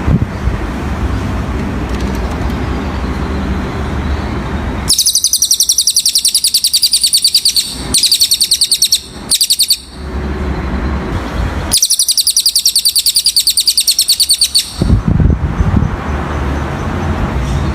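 Cililin songbird singing a high, rapid trill of many clipped notes a second, in three long bursts with short breaks, starting about five seconds in and stopping a few seconds before the end. Steady road-traffic noise with a low rumble fills the start and end.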